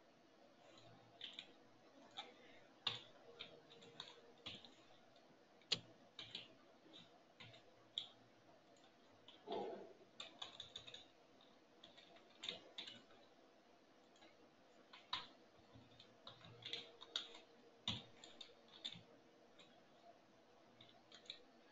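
Faint computer keyboard typing: irregular keystrokes in short runs with pauses between them.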